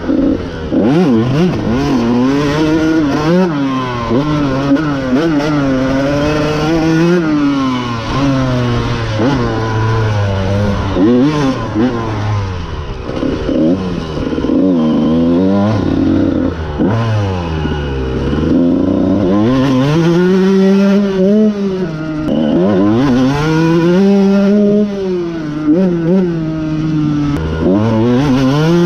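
1999 Honda CR125's two-stroke single-cylinder engine, heard close from a camera on the bike, revving hard with its pitch climbing and dropping over and over as the bike is ridden around a dirt track.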